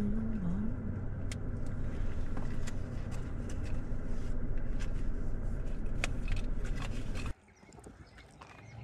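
Vehicle idling, heard from inside the cab: a steady low rumble with scattered small clicks, which cuts off suddenly about seven seconds in and gives way to quiet outdoor air.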